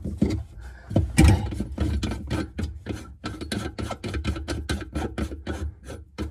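Rapid, even clicking and scraping, about five clicks a second, as the pop-up drain's pivot-rod nut is turned on the sink's drain tailpiece.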